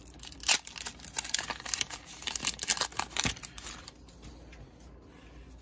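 Foil Pokémon Shining Legends booster pack being torn open, its wrapper crinkling in quick rustles. The crinkling dies down about four seconds in.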